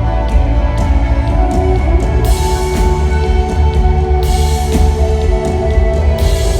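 Live rock band playing: drum kit with a steady hi-hat and crash cymbals struck about every two seconds, over bass and sustained guitar chords.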